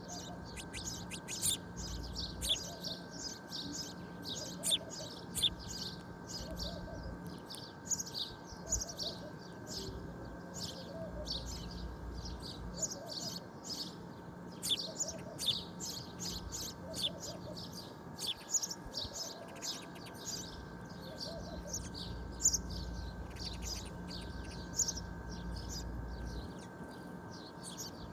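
Many small birds chirping, with short, quick, overlapping calls all through, over a faint steady hum.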